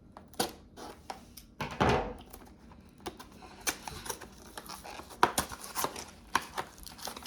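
Irregular sharp clicks, taps and rustles of trading-card packs and their packaging being handled, with a louder rustle about two seconds in.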